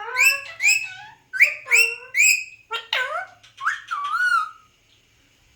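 Alexandrine parakeet giving a rapid string of short, high, rising whistled chirps, about a dozen in four seconds. It finishes with one longer wavering note about four seconds in.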